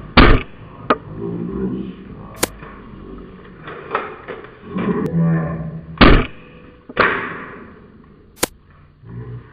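Spring-powered bolt-action airsoft sniper rifle firing: three sharp shots, near the start and about six and seven seconds in, each trailing off briefly, with lighter clicks in between.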